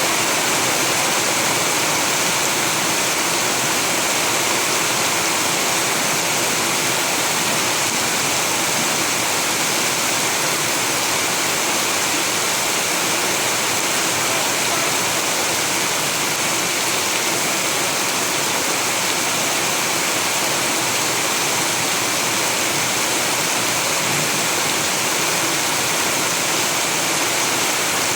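Rain falling steadily, an even, unbroken hiss with no single drops standing out.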